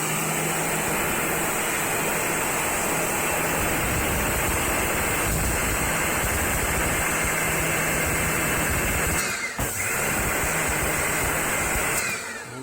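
Pressure washer spraying a wall: a steady hiss of the water jet over the hum of the machine. The spray cuts out briefly about nine and a half seconds in and stops near the end.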